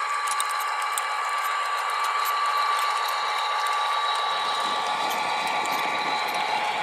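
Small electric motor and gearbox of a radio-controlled model machine whining steadily, with fine rapid clicking from the gears; a rougher, lower grinding noise joins about four seconds in.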